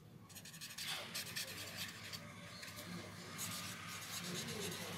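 Pen writing on paper: a run of quick, light scratching strokes as words are written by hand.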